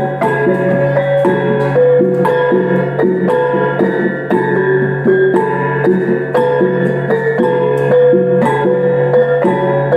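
Iban traditional brass gong music (taboh): small tuned brass gongs struck in a quick, repeating melodic pattern, each note ringing briefly, over a steady low hum.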